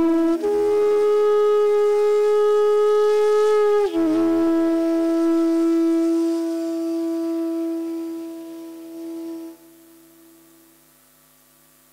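Bamboo transverse flute (bansuri) playing raga Amritavarshini in long held notes: one note is sustained for about four seconds and then steps down to a lower note. The lower note is held and slowly fades, then breaks off about two seconds before the end, leaving a short pause.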